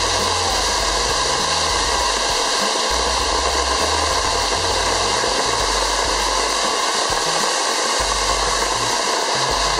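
Ground fountain firework spraying sparks: a steady, loud hiss.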